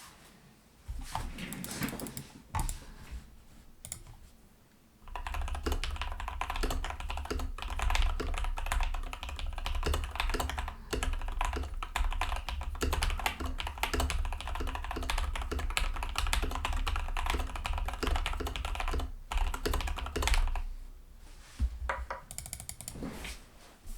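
Typing on a RAMA Works Kara mechanical keyboard with a polycarbonate plate, lubed and filmed CannonKeys Lavender switches and Infinikey keycaps. A few scattered keystrokes come first, then steady fast typing from about five seconds in to about twenty, and the typing tails off to a few separate presses near the end.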